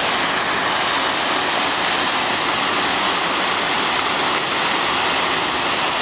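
Waterfall: high, muddy water pouring over stepped rock ledges into a pool, a steady loud rush.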